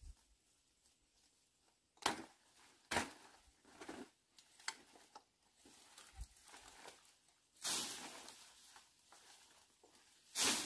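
Leafy plants rustling, snapping and tearing as they are pushed through and picked by hand, in a series of sharp separate crackles from about two seconds in, a longer rustle about eight seconds in and a loud crackle near the end.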